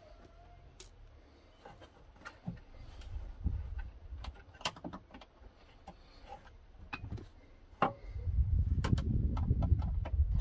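Scattered light clicks and knocks as a power inverter is handled and screwed onto its mounting; a low rumble comes in about eight seconds in.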